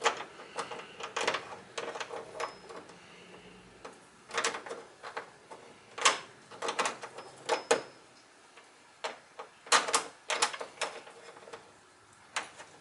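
Scattered sharp clicks and light metallic clinks of hardware being handled and tightened by hand: a ball stud being threaded into a blind nut for a hood gas strut.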